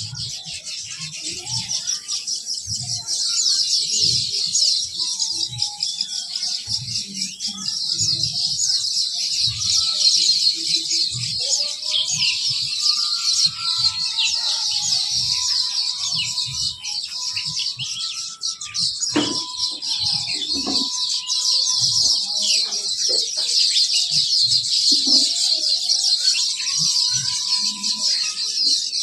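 Many small birds chirping together in a dense, unbroken high-pitched chatter, with occasional single clearer whistled notes and irregular low bumps.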